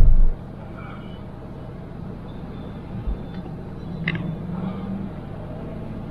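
Car on the move: a steady low road and engine rumble, with a loud low thump at the very start and a faint short tone about four seconds in.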